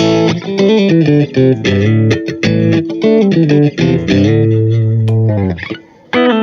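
Smiger LG2 Pro electric guitar playing a melodic run of single notes. About four seconds in it settles on a long low held note, pauses briefly near the end, then picks up again.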